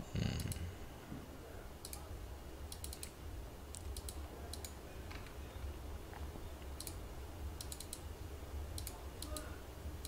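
Faint clicks of a computer mouse, some single and some in quick runs of two or three, over a low steady hum.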